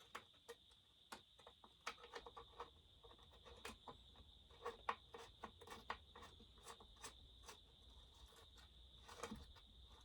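Faint, irregular clicks and light metal taps of a bolt and hand tool being worked while a muffler bolt is threaded into a McCulloch 800-series chainsaw, with a faint steady high tone underneath.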